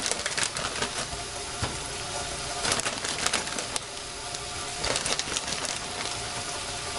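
Chicken and vegetables sizzling steadily in a frying pan, with a plastic bag crinkling and frozen broccoli florets dropping into the pan in several short bursts.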